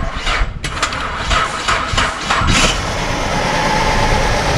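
V6 car engine cranking on the starter and catching about two and a half seconds in, then idling roughly. It is misfiring on five cylinders because cylinder 2's fuel injector is getting no command.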